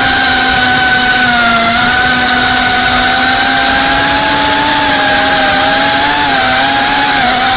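GEPRC Cinelog35 FPV drone's motors and propellers running in flight: a steady buzzing whine whose pitch wavers slightly with throttle and dips briefly near the end.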